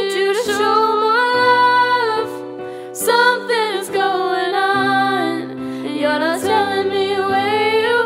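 Music: a sung melody over sustained accompanying chords that change every second or so.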